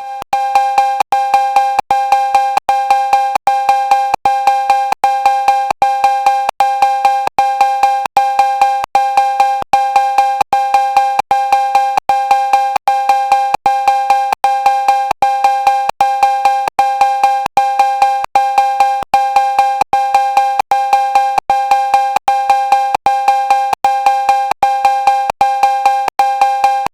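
Cowbell struck over and over in a steady, even rhythm of a few hits a second, each hit ringing briefly at a bright metallic pitch.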